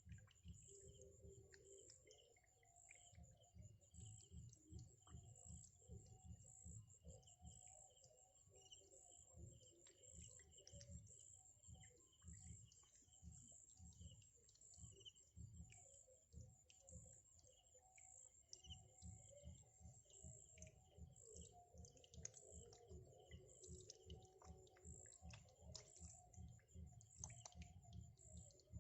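Faint bird calls and chirps, over a high, thin, evenly pulsing trill.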